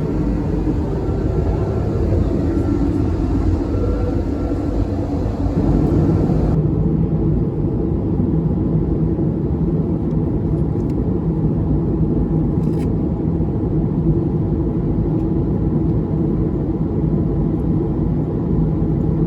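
Steady in-flight cabin noise of an Airbus A220-300 jet: a continuous low rumble of engine and airflow. About six seconds in, the higher hiss drops away and the low hum carries on.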